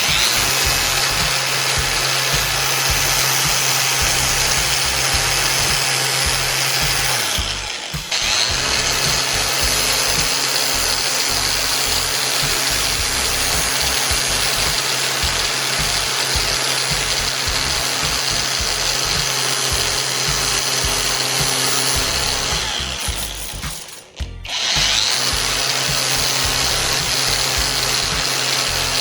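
Electric power tool running steadily with a high whine. It cuts out briefly twice, about a third of the way in and again near the end, and winds back up each time.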